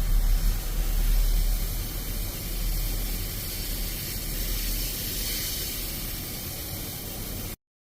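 Steady hissing spray, as in a car air-conditioning evaporator cleaning, with a low rumble underneath; it is loudest in the first couple of seconds and cuts off suddenly near the end.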